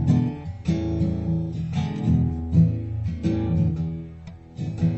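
Background music: acoustic guitar with plucked and strummed chords.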